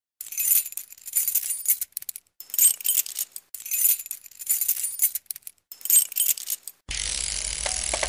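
Bright, high metallic jingling from a title-sequence sound effect, coming in repeated swells about a second long. About seven seconds in it gives way to a steady, fuller wash of intro sound.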